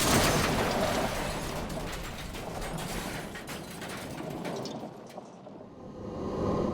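Car-crash aftermath: dense clattering and rattling that fades away over about five seconds. Near the end it gives way to a quieter, steady background.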